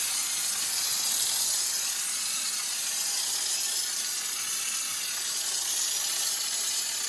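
Underbody sealer (schutz) spraying in a steady, continuous hiss as it is applied to the underside of a car body.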